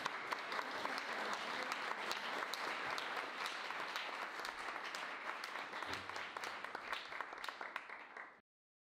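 Audience applauding, many hands clapping at once, tapering a little and then cut off suddenly near the end.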